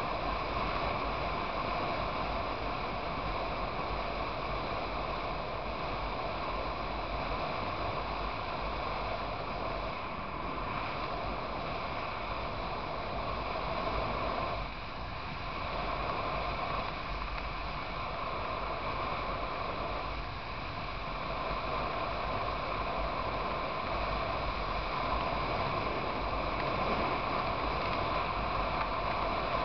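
Wind rushing over the camera microphone and a motorcycle running at highway speed, a steady noise that eases briefly about halfway through and again a few seconds later.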